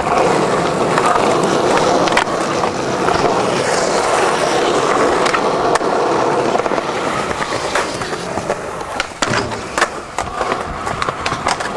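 Skateboard wheels rolling over pavement, a steady rumble, with a few sharp clacks near the end.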